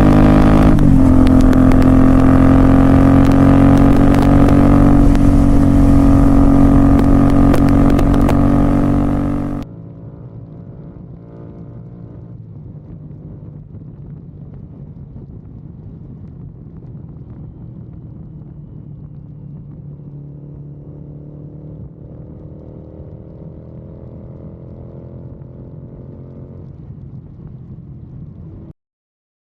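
Royal Enfield Continental GT 650 parallel-twin running through a Red Rooster aftermarket exhaust, loud and steady. About ten seconds in it drops suddenly to a much quieter, muffled engine sound, which cuts off just before the end.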